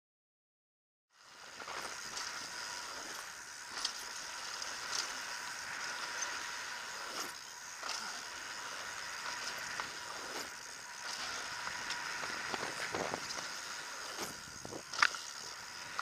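Mountain bike rolling fast down a dirt trail: a steady rush of tyre and wind noise, with rattles and sharp clicks from the bike over bumps. It starts about a second in, and the sharpest knock comes about a second before the end.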